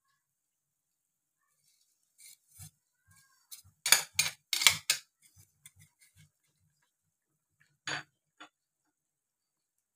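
A spoon knocking and scraping against a bowl as thin noodles are pushed out of it into a pot, with a quick run of loud clinks about four to five seconds in. A single clink of a spoon in the pot comes near the end.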